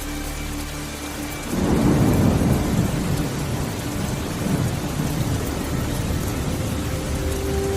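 Rain with a roll of thunder: a low rumble breaks out suddenly about a second and a half in, is loudest briefly, then slowly dies back into steady rain.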